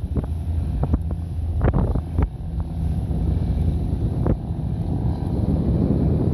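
Fishing boat's engine running steadily with wind buffeting the microphone, and a few short sharp knocks over the first half.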